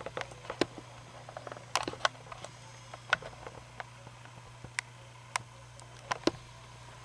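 Pet lemur chewing fruit close up: an irregular run of sharp wet clicks and smacks, some in quick clusters, over a steady low hum.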